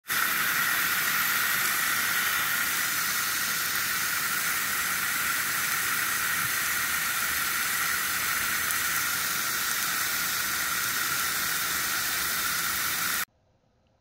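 Water spraying from a hose nozzle onto a car's windshield and hood, a steady hiss that cuts off abruptly near the end.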